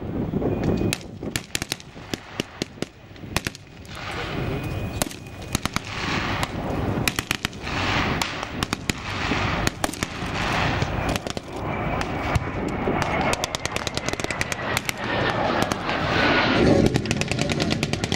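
Small-arms gunfire: many sharp shots from rifles and automatic weapons, some single, others in rapid bursts that overlap. Near the end a tracked armoured vehicle's engine comes in underneath.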